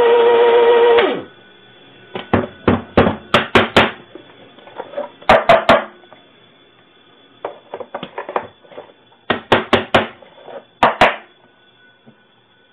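Electric burr coffee grinder running with a steady hum, stopping about a second in. Then several quick runs of sharp knocks as the plastic grounds bin is tapped to shake loose the ground coffee.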